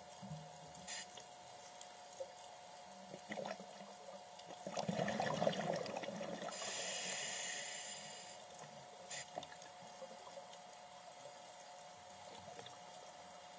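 Scuba diver breathing through a regulator underwater: a crackling burst of exhaled bubbles about four to six seconds in, then the hiss of the next inhale, over a faint steady hum.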